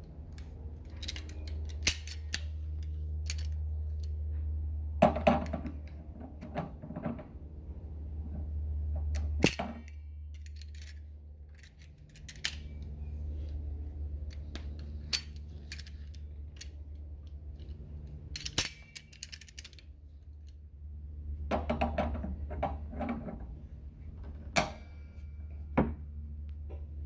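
Metal hand tools and pipe fittings being handled during plumbing work on a water heater relief valve: irregular sharp clinks and short clattering rattles over a low steady hum.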